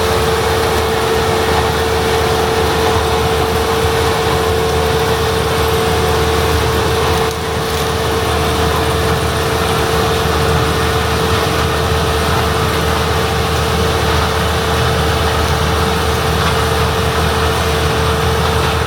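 International Harvester 1660 combine running steadily: a diesel engine drone with a constant high whine over it. There is a brief dip in level about seven seconds in.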